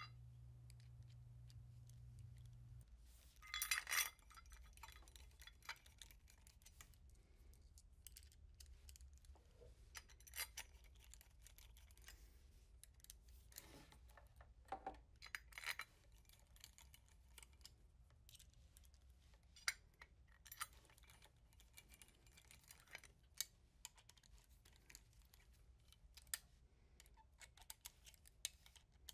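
Small machine screws clinking and a hand screwdriver clicking as the screws are driven to fasten a metal spacer onto a sewing machine's end casting: quiet, scattered light clicks and clinks, with a brief clatter about four seconds in.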